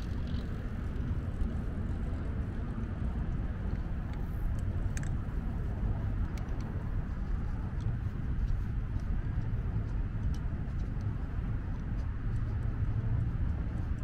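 Outdoor city ambience: a steady low rumble with faint, scattered short clicks and ticks.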